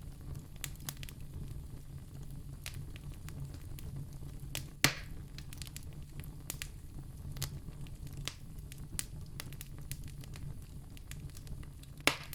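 Fire burning in a fireplace: a steady low rumble with frequent small crackles, and two louder pops, about five seconds in and near the end.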